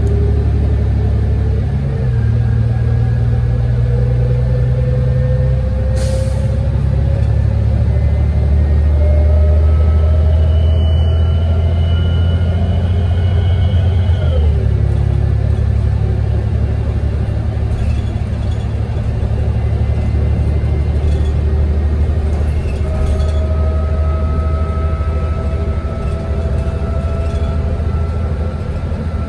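City bus engine and drivetrain under way, a steady low rumble with a whine that climbs as the bus gathers speed. The whine drops abruptly about halfway through and climbs again. There is a short hiss about six seconds in.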